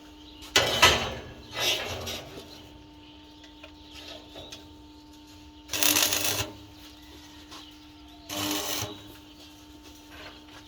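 Steady hum with four short bursts of metal-working noise, the loudest about a second in.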